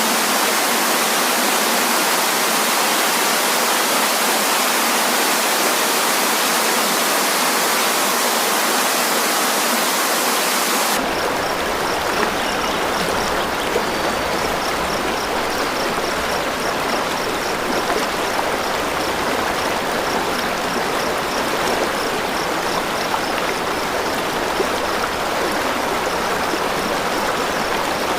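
Waterfall water rushing steadily as an even hiss of falling water. About eleven seconds in it switches abruptly to a deeper, fuller rush of water.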